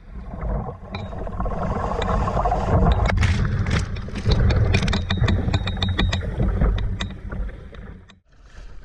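Wind rumbling on the microphone over the sea, with a run of sharp knocks and scrapes through the middle. The sound drops out abruptly near the end.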